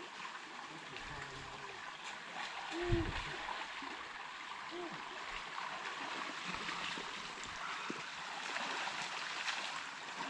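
Shallow creek running steadily over rocks at a ford where the water is about knee deep.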